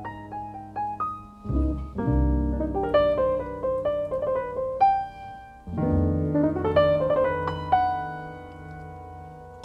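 Background piano music: a melody of short notes over held low chords.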